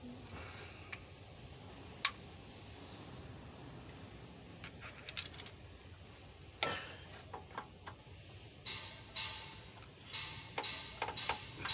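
Metal tools and parts clinking and tapping in a truck's engine bay as a belt tensioner is being fitted by hand. One sharp click about two seconds in is the loudest, with scattered clinks through the second half.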